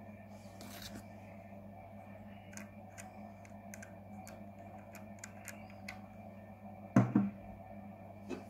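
Small clicks and taps of fingers handling a vape mod and its rebuildable atomizer, over a steady low hum. One louder thump about seven seconds in, and a smaller one near the end.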